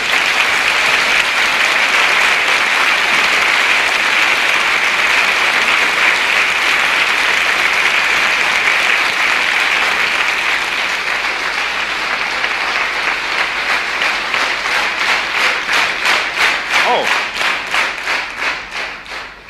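Large concert audience applauding after a song. About two-thirds of the way through, the clapping falls into rhythmic unison, about three claps a second, then fades near the end.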